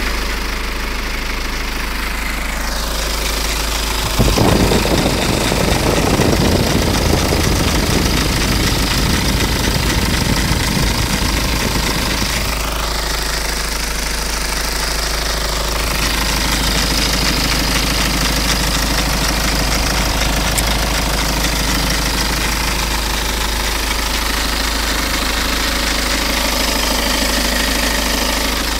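BMW 120d's four-cylinder diesel engine running with a strange tac-tac-tac knocking from the engine. About four seconds in it turns suddenly louder and busier, and it settles back after about twelve seconds.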